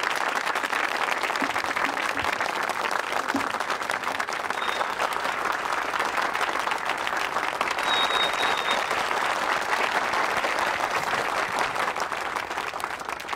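Crowd of guests applauding, a steady mass of hand-clapping that eases slightly near the end.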